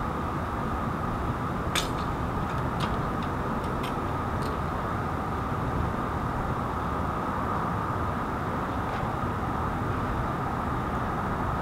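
Steady rumble of an idling emergency-vehicle engine, with a handful of sharp clicks between about two and four and a half seconds in.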